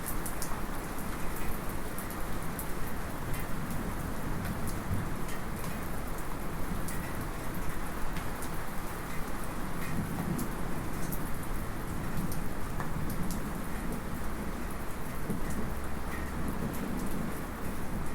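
Steady light rain pattering, with sharp drop ticks and an occasional small metallic drip. Low, distant thunder rumbles underneath, swelling about halfway through and again near the end.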